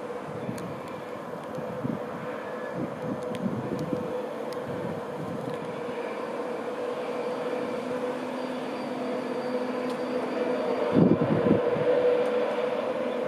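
An InterCity 225 train, led by a Class 91 electric locomotive, running steadily past: a continuous rumble of the train with a steady electric hum, getting a little louder near the end.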